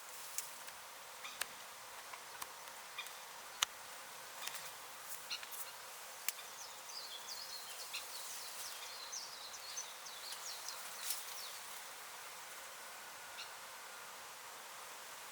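Outdoor ambience: a steady high hiss with scattered sharp ticks, and a run of short high chirps in the middle.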